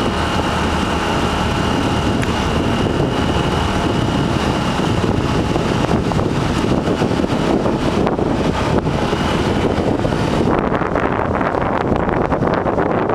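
Wind rushing over the microphone, mixed with road and engine noise, from riding along a street at speed. The highest hiss dulls about ten seconds in.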